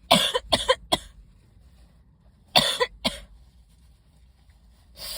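A woman's sneezing fit, set off by dust: three quick sneezes in a row, two more about two and a half seconds in, and another near the end.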